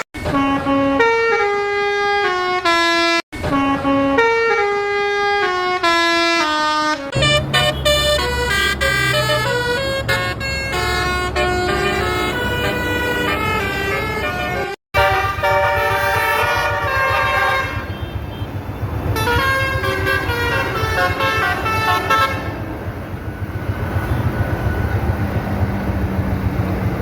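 Telolet basuri musical bus horn playing melodies of quick stepped notes, the first phrases running down in pitch again and again. From about seven seconds in, a bus engine rumbles underneath the horn. The sound breaks off abruptly twice, for a split second each time.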